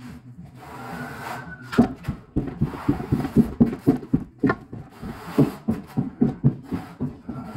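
Trowel scraping mortar across a concrete floor: a run of short, rubbing strokes, about three a second, starting about two seconds in.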